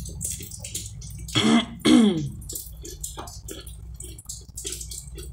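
A woman clearing her throat twice in quick succession, about a second and a half in, each rasp sliding down in pitch. Her throat is scratchy from a cold that she is almost sure is flu.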